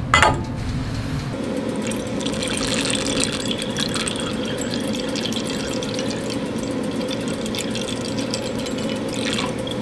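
Hydrochloric acid poured in a steady stream through a glass funnel into a glass round-bottom flask, splashing as the flask fills. A single sharp click right at the start.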